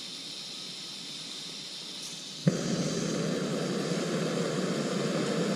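Small canister gas stove being lit: gas hisses from the open burner, with a click near the start. About two and a half seconds in, the burner catches with a sudden pop and then runs steadily, louder and lower than the hiss.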